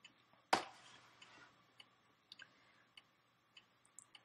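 A single sharp click about half a second in, then a few faint scattered ticks, from a metal-trimmed fountain pen being handled in the fingers.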